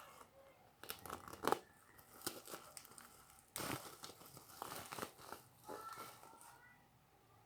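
Packaging being torn open and crinkled, in a string of irregular rips and rustles, loudest about a second and a half in and again around the middle.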